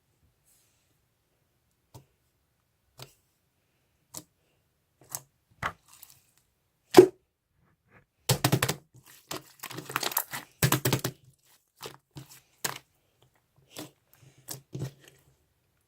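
Handling noise: a series of short clicks and crackles, sparse at first and densest near the middle, like something being crinkled or torn close by.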